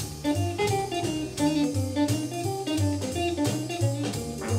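Background music: a plucked guitar melody over a repeating bass line and light drums.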